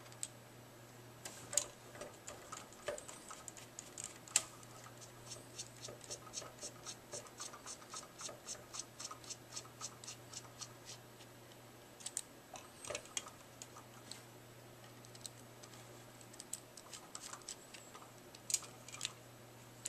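Faint small clicks and taps of a small screwdriver working the set screw above the swash plate on a WLToys V913 helicopter's rotor head. About five seconds in, a run of evenly spaced clicks, about four a second, lasts several seconds.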